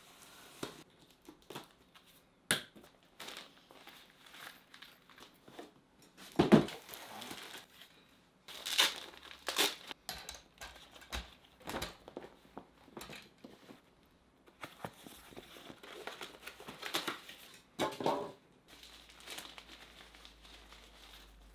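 A knife cutting open a cardboard box, then irregular rustling and crumpling of packaging and softbox fabric as a budget softbox is unpacked and handled, with a few sharp clicks and knocks from its parts. The loudest rustle comes about six seconds in.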